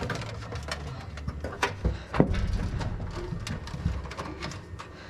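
Handling noises as a cable is pushed and routed by hand: scattered light clicks and ticks, with a couple of louder knocks about two seconds in.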